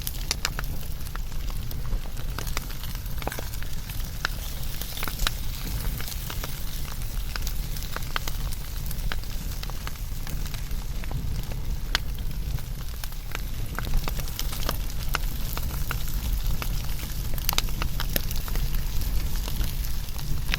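Wood fire burning, with irregular sharp crackles and pops over a low, steady rumble.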